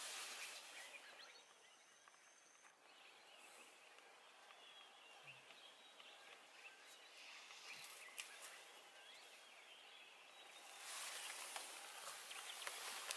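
Near silence: quiet bush ambience with faint, scattered bird chirps and a few soft clicks. A hissy rustle rises near the end.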